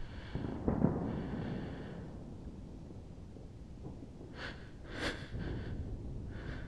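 A person breathing close to the microphone, a few drawn breaths over a steady low rumble, with a heavier dull swell about a second in.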